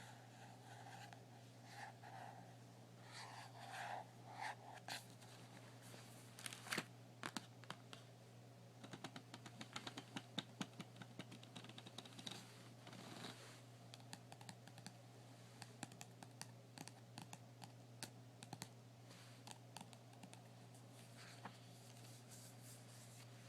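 Fingernails tapping and clicking on a small notebook: light, irregular taps that come in quick runs, thickest through the middle, over a faint steady low hum.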